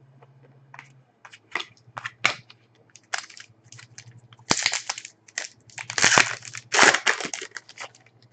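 A trading-card pack wrapper being torn open and crinkled, in irregular bursts of rustling that start about a second in and grow loudest in the second half.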